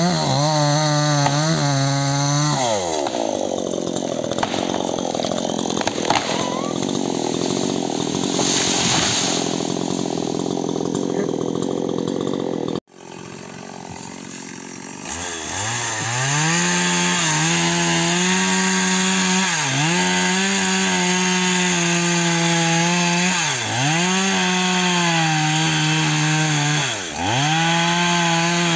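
A chainsaw runs at high revs, then drops in pitch and labours as the chain bites into the rubber tree's trunk, with a dense grinding of wood under the saw. After an abrupt break about halfway through, the saw runs again at high revs while cutting at the base of the trunk, its pitch dipping briefly about every three and a half seconds.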